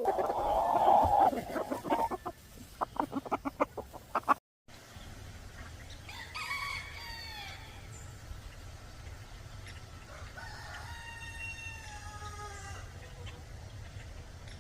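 Chickens clucking, with a quick run of sharp clucks about three seconds in; after a cut, a rooster gives a short call and then a long crow near the end.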